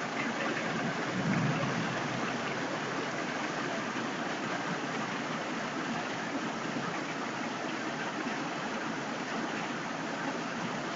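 Heavy downpour: a steady hiss of rain pouring down, with a brief low rumble swelling about a second in.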